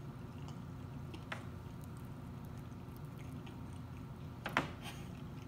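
A person chewing fried oysters, with a few short clicks, the loudest about four and a half seconds in, over a low steady hum.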